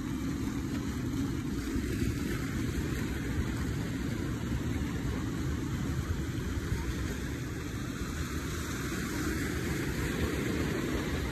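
Small waves washing over the boulders below a concrete seawall: a steady rushing noise with a heavy low rumble.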